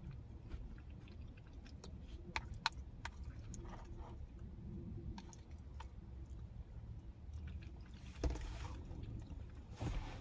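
Close-up chewing and mouth sounds of a person eating chili and cornbread, with scattered small clicks and two louder bursts near the end.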